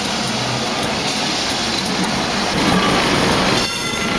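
Vintage Lisbon electric tram running on its rails: a steady mechanical running noise that grows louder towards the end and then breaks off sharply into different running noise near the end.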